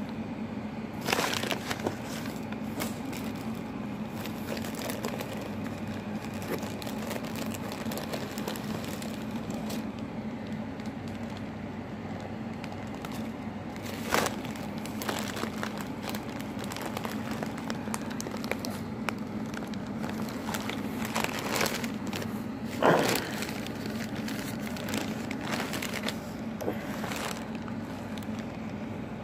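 Packing paper and plastic bags rustling and crinkling as hands rummage through a cardboard box, over a steady low hum. There are a few louder crackles: about a second in, around the middle, and a few seconds before the end.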